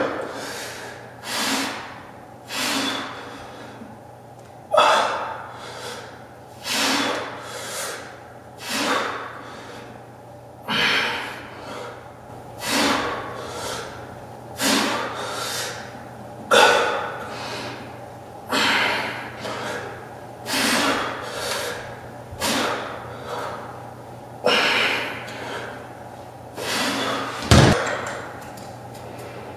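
A man breathing out hard in rhythm with dumbbell tricep kickback reps, a sharp breath roughly every one to two seconds. A single low thud comes near the end.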